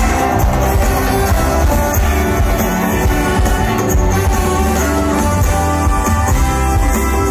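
A large live band playing loud, steady music, with guitar over a strong bass and drums.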